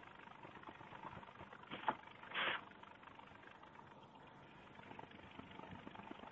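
Faint scratching of a pencil drawing on paper, with two short, louder strokes about two seconds in over a low, steady background hum.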